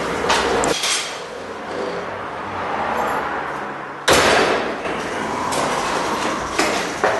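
Metal clatter and knocks as a bicycle is wheeled in and handled, with a sudden loud bang about four seconds in.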